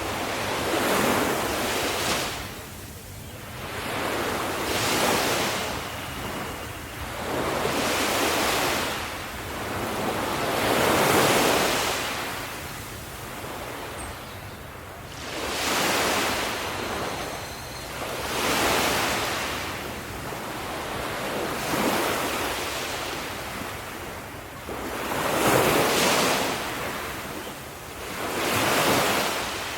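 Ocean waves breaking on the shore. The surf rises and falls away about nine times, roughly every three seconds.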